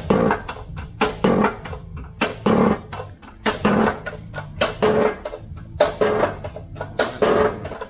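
Background music: guitar playing a steady, rhythmic pattern of plucked or strummed chords.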